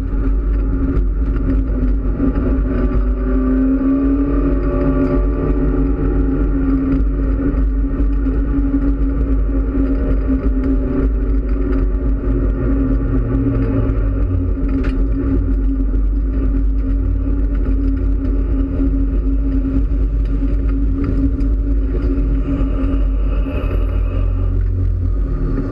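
Mitsubishi Lancer Evolution X race car's turbocharged four-cylinder engine heard from inside the cabin, running steadily at low revs as the car rolls slowly in off the track. The pitch shifts a little a few seconds in and drops about halfway through as it slows further.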